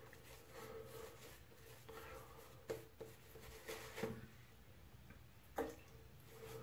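Shaving brush scrubbing lather onto a stubbled face: faint soft swishing strokes, with a few brief louder scrubs about three, four and five and a half seconds in.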